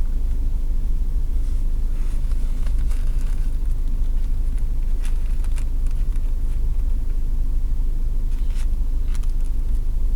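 Steady low rumble of a running car heard from inside the cabin, with a few faint short clicks here and there.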